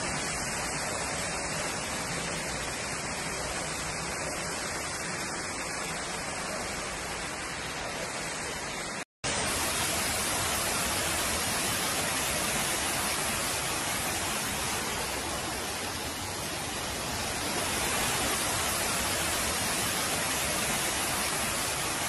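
Floodwater rushing, a steady dense wash of water noise. It breaks off briefly about nine seconds in, then resumes fuller as water cascades down a flight of stairs.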